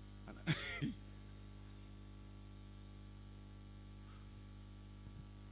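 A brief loud vocal exclamation from a man's voice through a microphone about half a second in, then only a steady electrical mains hum from the sound system.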